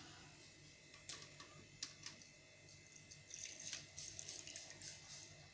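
Drinking water poured from a plastic jug into a glass mug over ice cubes, a faint splashing trickle from about three seconds in, after a few light clicks.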